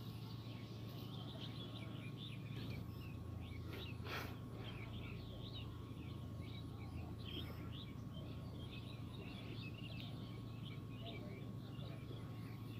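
Many small birds chirping in quick, overlapping calls over a steady low hum, with a single sharp click about four seconds in.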